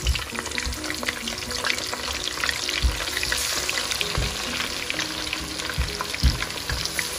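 Seasoned fish pieces deep-frying in hot oil in a pan: a steady sizzle with dense crackling and popping. A few dull low thumps come through the frying.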